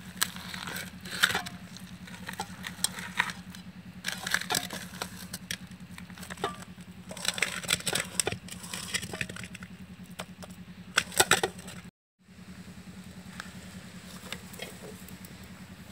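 Hands squeezing and mixing shredded banana flower through a thick gram-flour batter in a steel bowl, giving a run of wet crackles, crunches and small clinks against the bowl. A steady low hum runs underneath, and the sound drops out for a moment about twelve seconds in.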